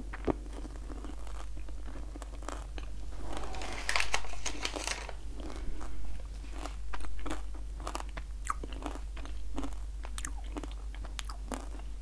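A person chewing candy-shelled Fudge Brownie M&M's, the sugar shells crunching in short irregular bites. A denser, louder crunching comes about four seconds in.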